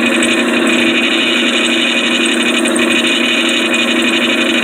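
Steady machine noise: an engine running together with a magnetic drill drilling, holding one level throughout.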